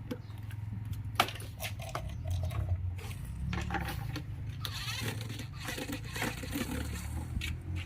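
Scattered clicks and knocks of plastic parts being handled as an electric fan is taken apart, over a steady low hum.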